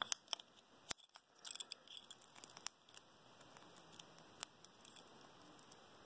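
Faint crinkling and rustling of adhesive tape being peeled and handled by fingers, with scattered small sharp clicks.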